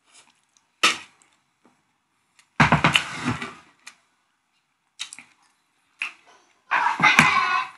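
A person eating pancit close to the microphone: short knocks and clinks of utensils on a plate, and two longer, louder bursts of mouth noise about two and a half and seven seconds in.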